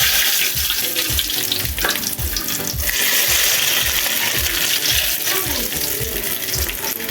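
Onions frying in hot oil in a pan, giving a steady sizzle.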